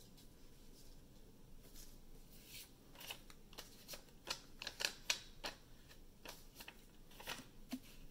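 Sheets of paper rustling and crinkling as cut paper pieces are handled and pressed down to glue them: a string of quick, faint crackles starting about three seconds in and stopping near the end.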